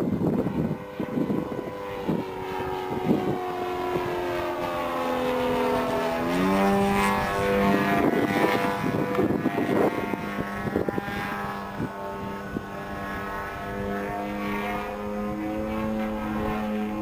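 Engine and propeller of a radio-controlled Yak 55SP aerobatic model plane droning in flight. The pitch keeps shifting as it manoeuvres, with a marked drop about six seconds in. A gusty low rumble of wind on the microphone sits under it in the first few seconds.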